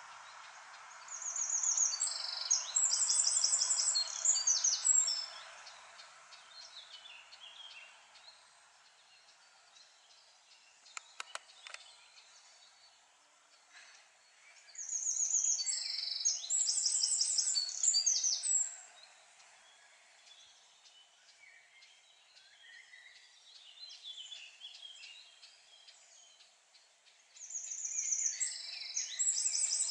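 A songbird singing the same loud, high song of rapid repeated notes three times, each about four seconds long, with long pauses between, over faint steady background noise. A few short clicks fall near the middle.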